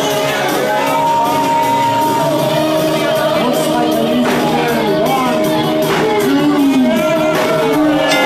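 Music with voices singing and shouting over it, and three sharp slaps about a second and a half apart: the referee's hand hitting the wrestling ring mat for a three-count pinfall.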